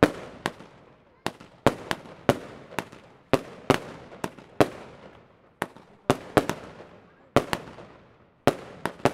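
Two Six Red fireworks firing a fast series of aerial shots: sharp bangs at roughly two a second, unevenly spaced, each trailing off briefly before the next.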